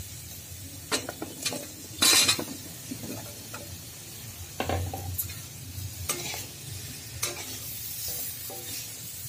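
Sliced radish going into hot fried spice paste in a kadhai: a loud sizzle about two seconds in, then a metal spatula stirring and scraping the pan in several strokes over a steady, quieter sizzle.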